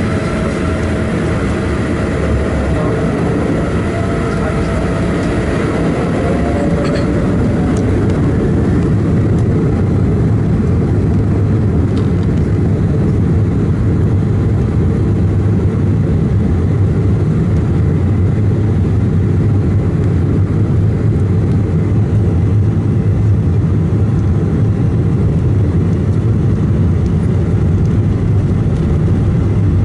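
Embraer 190 jet engines heard from inside the cabin: a whine that rises in pitch about five seconds in as the engines spool up for takeoff. Then it grows louder into a steady low roar of takeoff thrust and the takeoff roll down the wet runway.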